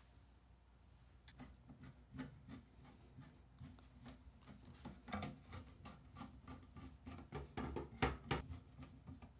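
Faint scattered clicks, taps and rubbing of small screws and metal parts being handled as a motherboard is screwed down onto its standoffs in a PC case, busier and louder in the second half.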